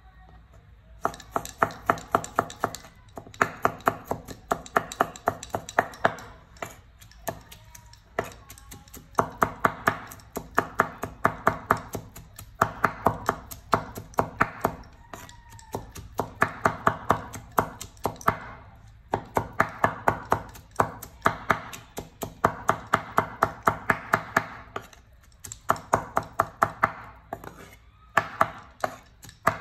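Steel cleaver rapidly chopping tomatoes on a wooden cutting board: quick, even knocks about six a second, starting about a second in and coming in runs of a few seconds with short pauses between them.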